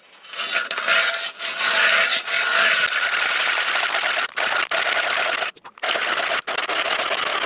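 Hand ice auger's steel blades shaving into ice as the crank is turned, a steady scraping rasp, the start of drilling a fishing hole. It breaks off briefly about five and a half seconds in.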